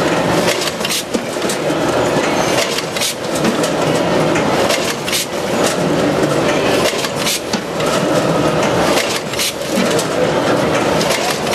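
C-Pack VAC 929 net-bagging machine running while it fills and drops net bags of onions: a steady mechanical clatter with frequent sharp clicks and knocks.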